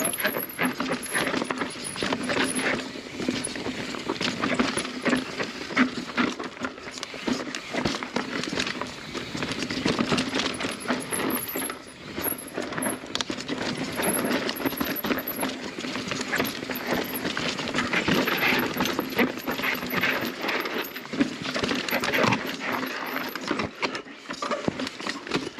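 Mountain bike descending a rocky dirt trail at speed: tyres rattling and knocking over rocks and roots, with clatter from the chain and frame, in a continuous run of quick knocks.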